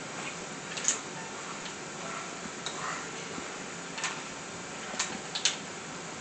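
Hanging baby crib toys clicking and rattling as a baby bats at them: a handful of sharp, irregular clicks over a steady faint hiss.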